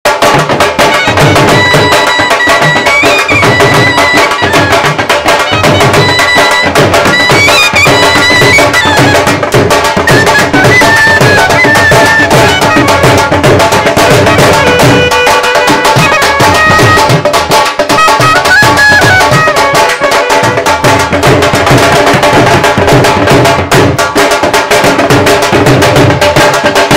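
Clarinet playing a Punjabi folk melody with slides between notes, over two dhol drums beating a steady rhythm.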